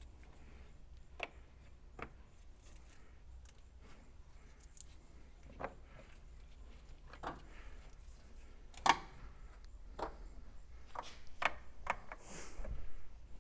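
Scattered light clicks and knocks from hand work on the car, a dozen or so at uneven spacing, the loudest a little past the middle, over a faint low hum.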